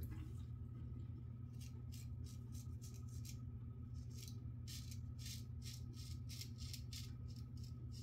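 Vintage Giraffe straight razor scraping through lathered stubble on the neck in short, choppy strokes, a quick rasp a few times a second. A steady low hum runs underneath.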